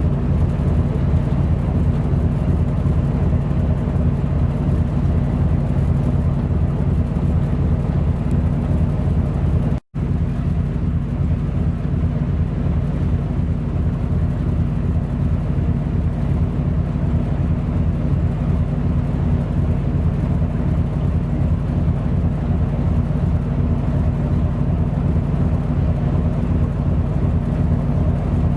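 Ship's diesel engine running steadily: a loud, pulsing low drone that holds the same pitch throughout, broken by a momentary dropout about ten seconds in.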